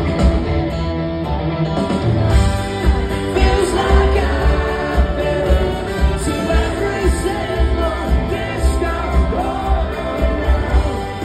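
A rock band playing live, with electric guitars, a steady thudding beat and singing, heard from among the audience.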